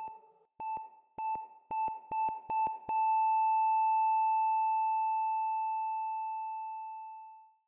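Hospital heart monitor beeping in short, same-pitched beeps that come faster and faster, then running into one long steady flatline tone that slowly fades out. The flatline is the monitor's sign that the heart has stopped.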